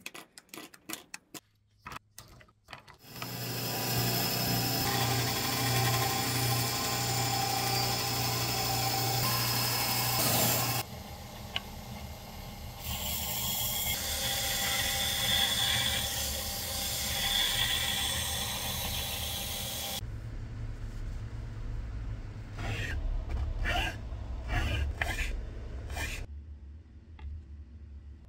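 DeWalt quick-release bar clamps clicking as they are undone, then a power tool running steadily for several seconds as it cuts and shapes a glued-up wooden saya (knife-sheath) blank to its pencilled outline. A second stretch of rougher tool work on the wood follows, then scattered handling knocks near the end.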